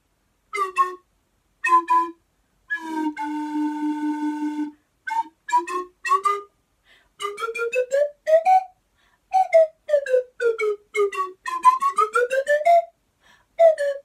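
Slide whistle played in a string of short toots that slide down and up in pitch, with one longer held note about three seconds in and a long rising glide near the end.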